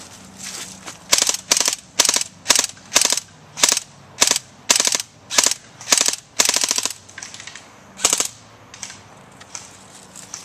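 Airsoft electric rifle firing in short rapid bursts, about a dozen in quick succession at roughly half-second spacing, then a pause and one last burst.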